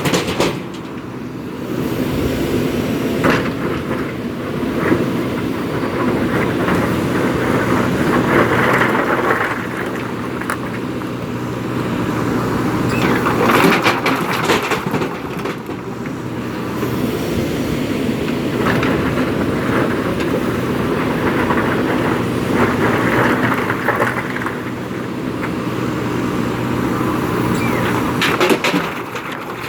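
JCB 3DX Super backhoe loader's diesel engine running steadily under load, with stones clattering and knocking against the steel bucket in surges every few seconds as they are scooped and tipped.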